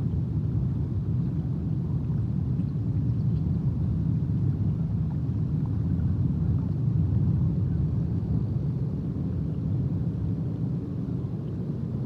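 Steady low outdoor rumble, even throughout, with no distinct calls or events standing out.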